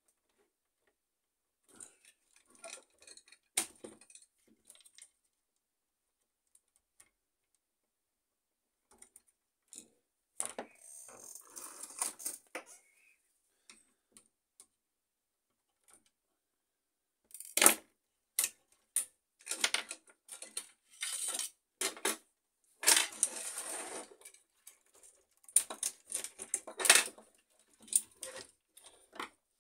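Plastic and metal parts of an HP LaserJet M607 fuser assembly clicking and clattering as it is worked apart with a small screwdriver and handled on a wooden bench: a few light clicks at first, then, in the second half, a busy run of sharp knocks with short bouts of scraping.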